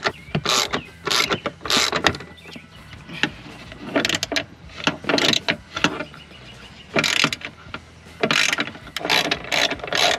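Ratchet wrench clicking in runs of quick strokes, with short pauses between them, as a long Torx Plus T45 seatbelt anchor bolt is backed out.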